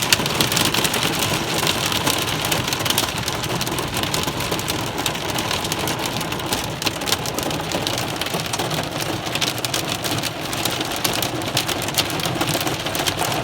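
Heavy rain and hail pelting down together: a dense steady hiss of rain, broken by many sharp ticks of hailstones striking.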